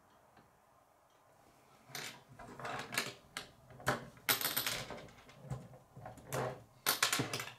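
K'nex plastic rods and connectors clicking and clattering as pieces are handled and unclipped from the model, in quick runs of sharp clicks starting about two seconds in.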